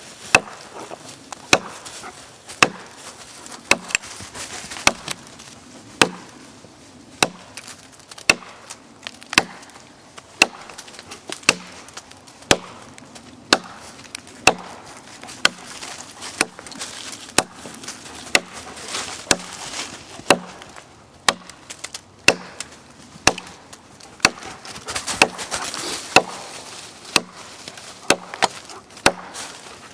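Gränsfors Bruks Mini Hatchet chopping a notch into a log: steady sharp strikes of the blade into the wood, about one a second, with chips splitting off.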